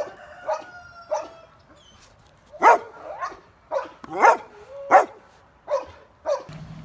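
Belgian Malinois giving about nine short, high-pitched barks and yelps, spaced irregularly, with a pause of about a second and a half after the first few.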